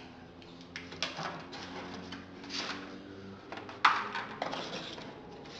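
Handling noise from unpacking a cardboard box and its packaging: scattered light clicks and taps, with one sharper knock a little under four seconds in.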